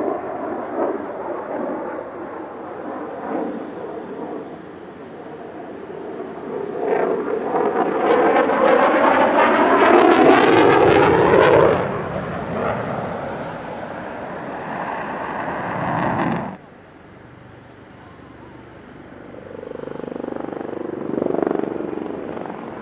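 Fighter jets flying display passes. The loudest pass, in the middle, has the falling pitch of a jet going by. The sound cuts off sharply after about sixteen seconds, and helicopters are heard near the end.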